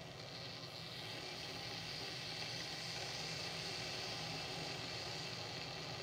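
Glass electric kettle heating water: a steady hiss as small bubbles start forming at the bottom, growing a little louder over the first couple of seconds. The water is not yet at a rolling boil.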